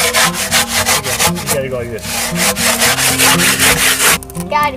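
A spade blade scraping and chopping in the dirt of a post hole, in fast regular strokes of about seven a second that stop about four seconds in. Background music with a steady beat plays underneath.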